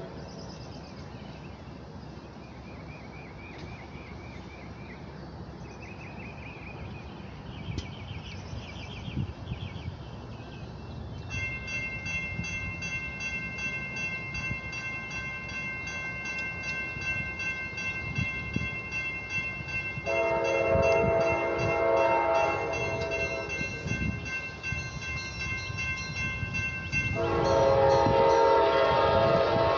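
Approaching Amtrak passenger train led by P42DC diesel locomotives: its horn sounds a chord blast about two-thirds of the way through and again near the end, over a growing low rumble. A steady high ringing starts about a third of the way in, and birds chirp before it.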